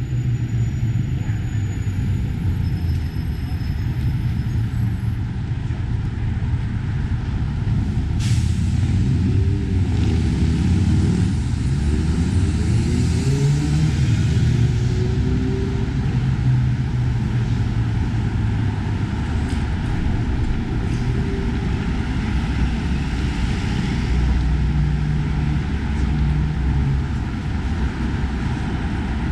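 City street traffic: heavy vehicle engines running and passing with a steady low rumble, one engine rising and falling in pitch through the middle. A short sharp hiss about eight seconds in.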